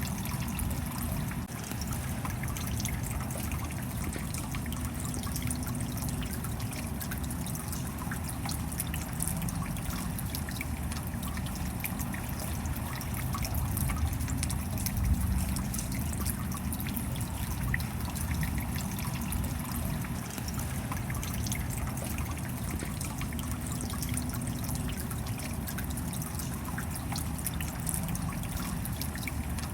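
Steady rain, with many small drop ticks and trickling water over a low rumble.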